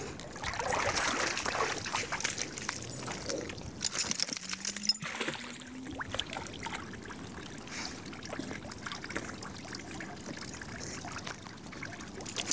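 Water splashing and sloshing as a dog swims through a shallow stream and wades out, loudest in the first couple of seconds, over the steady trickle of flowing water.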